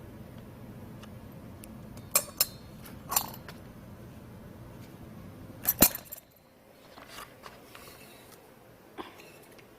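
Metal tools or parts clinking against each other in a few sharp strikes, the loudest pair just before six seconds in, over a steady low hum that cuts off about six seconds in.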